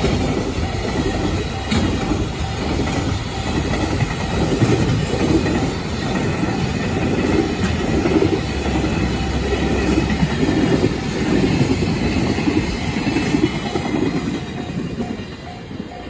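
Container freight train's flatcars rolling past at close range, a steady rumble and clatter of wheels on the rails that fades over the last couple of seconds as the end of the train goes by.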